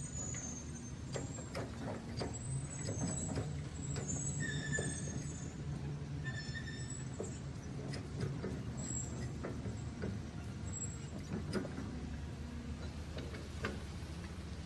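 Electric motors of a radio-controlled toy excavator whirring with a steady low hum as its boom lifts, with scattered clicks and a few short high chirps.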